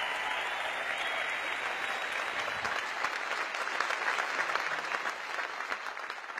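Large audience applauding, a dense patter of many hands clapping that tapers off near the end.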